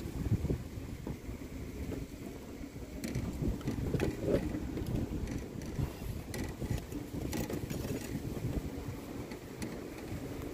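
Low, uneven rumble of outdoor wind on the microphone, with scattered short clicks and rustles from handling a fishing rod and its cardboard and plastic packaging.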